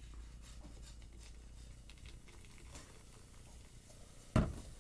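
Faint ticks and crinkles of plastic bottles being handled while white vinegar is poured into a small plastic water bottle, then a single thump near the end.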